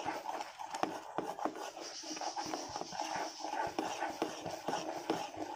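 Silicone spatula stirring and scraping around a pan of milk and sugar simmering down into homemade condensed milk. It makes irregular small scrapes and clicks over a soft hiss.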